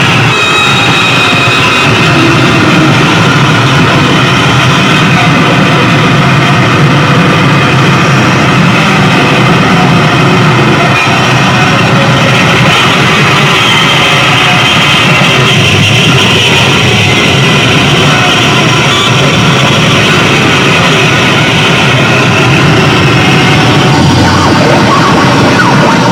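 Harsh noise electronics played live: a loud, unbroken wall of distorted electronic noise, with high shrill tones running through it.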